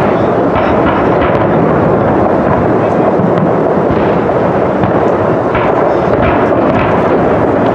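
Dense fireworks barrage: many aerial shells bursting at once, their booms overlapping into a loud, unbroken rumble with small crackles on top.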